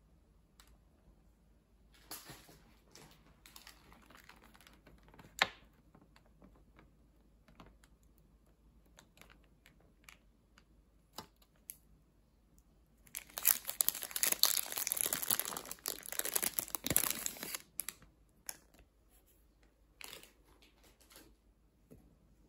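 Thin plastic wrapper crinkling and rustling as it is pulled off a daifuku by hand, loud for several seconds past the middle. Earlier come lighter rustling and a sharp click.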